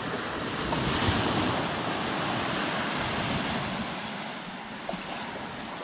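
Small waves washing onto a sandy beach, a steady wash that swells in the first couple of seconds and eases off toward the end, with some wind on the microphone.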